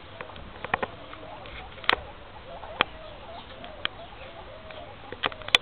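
A group of guinea pigs eating fresh greens: sharp crunching clicks of chewing and tearing leaves every second or so, over faint, wavering squeaky calls.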